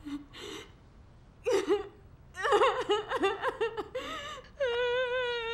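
A woman crying: a few breathy sobs, then a run of quick, gasping, broken sobs, then a long wavering wail beginning about four and a half seconds in.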